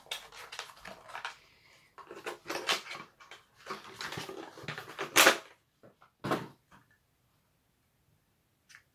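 Hands working at a diecast toy car's cardboard-and-plastic packaging to free it from its hard wire ties: irregular crinkling and clattering, with a louder knock about five seconds in and another about a second later.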